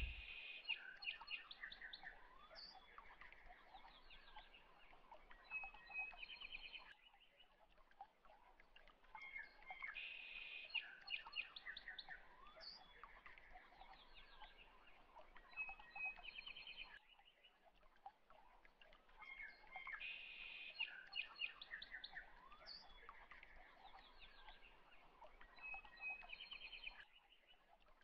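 Faint birdsong chirps and trills from a looped background ambience track, the same passage repeating about every ten seconds with a short break between repeats.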